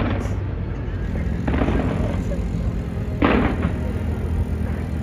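Fireworks bursting: two sharp bangs a little under two seconds apart over a continuous low rumble.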